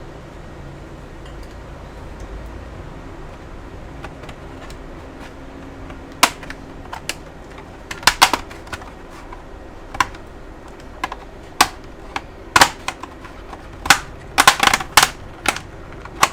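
Sharp plastic clicks and snaps from working loose the bottom cover of a laptop. They start about six seconds in and come irregularly, bunching together near the end.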